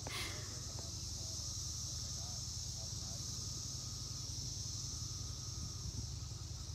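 Chorus of periodical cicadas: a steady, high-pitched drone of many insects calling at once.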